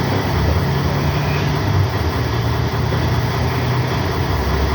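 Steady low drone of a running engine, level and unbroken.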